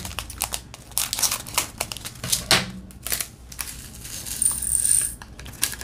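A small plastic bag of diamond-painting drills crinkles as it is handled and snipped open with scissors, then the tiny resin drills are tipped into a small plastic container as a run of light clicks and rustles.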